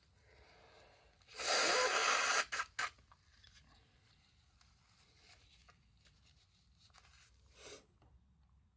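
A person with a head cold expelling one loud, noisy blast of air through the nose about a second and a half in, lasting about a second, followed by two short snorts, then faint rustling and a small sniff near the end.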